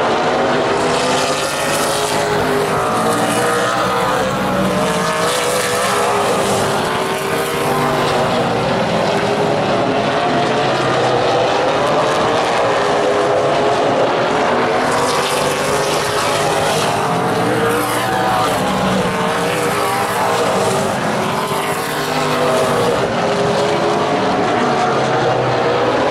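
A field of Super Late Model stock cars racing on a short oval track. Their V8 engines rise and fall in pitch as the cars accelerate off the turns and lift going into them, with several engines overlapping.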